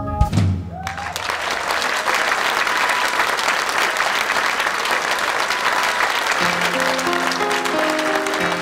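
Concert audience applauding after a song ends, the last chord dying away in the first second. About six seconds in, sustained keyboard notes begin to play under the applause, opening the next song.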